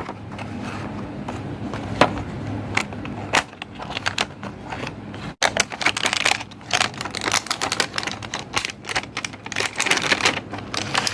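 Cardboard box of a neckband headset being opened and its packaging handled: irregular sharp clicks and crackles, sparse at first and coming thick and fast in the second half.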